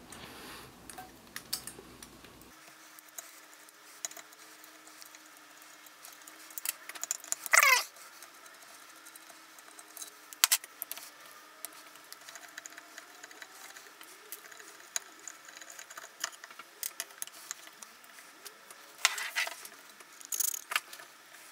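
Scattered light clicks, taps and rattles of tools and small metal fittings as a small airbrush compressor is taken apart by hand. One short falling squeak comes about seven and a half seconds in.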